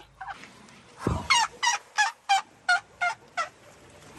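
Asian elephants squeaking: a run of about seven short, high squeaky calls at roughly three a second, just after a brief low rumble about a second in.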